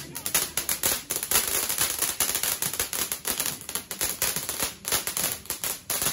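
Ground fountain firework spraying sparks, with a dense, uneven crackle and hiss.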